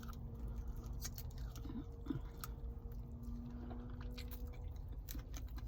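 A person chewing a mouthful of snow crab meat, with a few small clicks scattered through.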